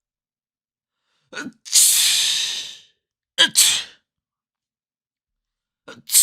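Two human sneezes, each a short voiced intake of breath followed by a loud, breathy blast: the first blast long, about a second, the second quick. A third sneeze begins at the very end.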